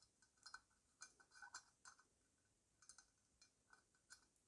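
Faint, irregular small metallic ticks and clicks of a screwdriver tip seeking the slot of the intake ball check assembly in a Carter WO carburetor body.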